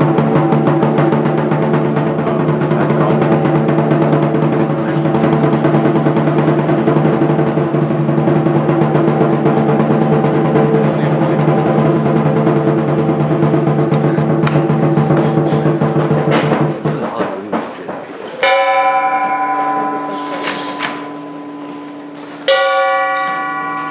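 Lion dance percussion: the big drum, cymbals and gong play a fast, continuous roll that breaks off about two-thirds of the way through. Two single strikes follow, about four seconds apart, each left to ring out.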